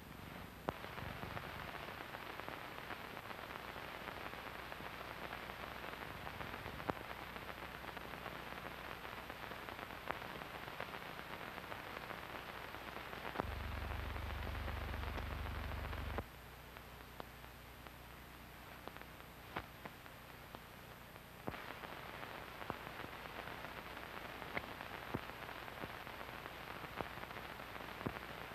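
Hiss and crackle of an old archival soundtrack with no program sound: steady noise with scattered clicks and pops and a low mains hum. A louder low hum comes in for about three seconds in the middle, and the hiss drops off for a few seconds after it.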